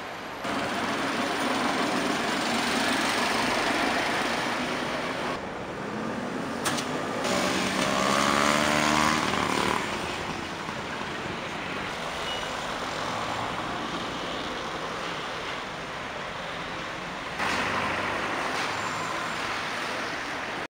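Road traffic around a roundabout: cars and vans passing. About eight seconds in, one vehicle's engine rises in pitch as it accelerates past. The background changes abruptly a few times where shots are cut together.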